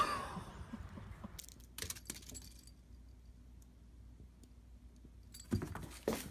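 A kitten playing among cardboard boxes: light clicks and rattles, then a cluster of louder knocks and rustles near the end as it dives into a box.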